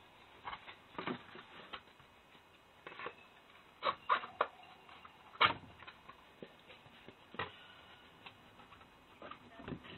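Irregular crackles, clicks and rustles of a foil-lined Tetra Pak carton being cut open with a table knife and flattened by hand, with a few sharper clicks near the middle.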